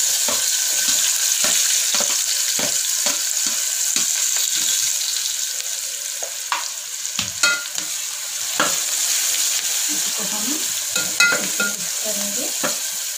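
Chopped onions sizzling in hot oil in an aluminium pressure cooker, frying with tempering spices. A metal spoon stirring and scraping against the pot makes sharp clicks, and the sizzle eases slightly after about halfway.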